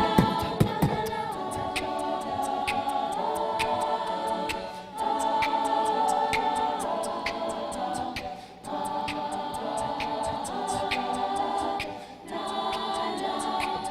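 A cappella group singing a wordless passage of sustained vocal chords over a steady beat of crisp ticks, likely vocal percussion. The chords break off briefly three times, about every three to four seconds.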